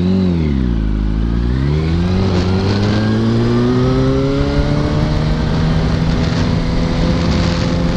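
2005 Yamaha R1's inline-four engine pulling away from a stop. Its pitch rises and drops twice near the start as it shifts up, then climbs slowly and steadily as the bike gathers speed.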